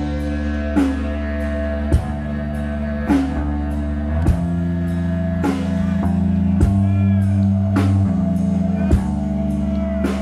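Rock band playing live: electric bass holding long low notes under guitar, with a drum hit about once a second in a slow beat.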